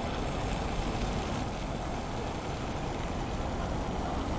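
Steady city street noise: a low, even rumble without distinct events, typical of traffic heard while walking through a town centre.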